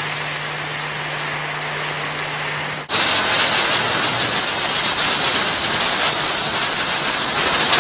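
Category 1 indoor firework burning with a steady hiss. About three seconds in, the hiss suddenly becomes louder and brighter.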